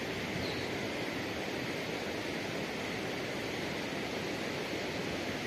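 Steady outdoor rushing noise, even throughout, with no distinct events.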